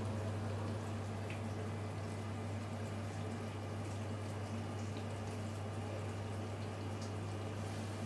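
Miele G5500 SCI built-in dishwasher running mid-cycle: a steady low hum with water splashing and swishing inside the tub.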